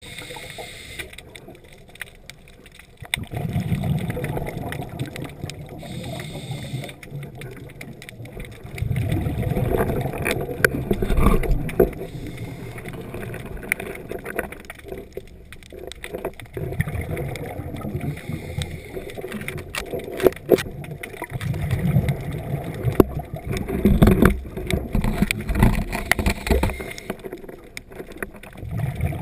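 Scuba diver's exhaled bubbles from the regulator, bubbling and gurgling in several bursts a few seconds long, picked up underwater by the camera, with scattered sharp clicks between them.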